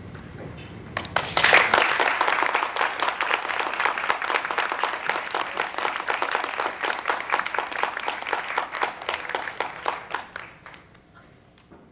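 Audience applauding at the end of a performance, starting suddenly about a second in, holding strong, then thinning out and dying away near the end.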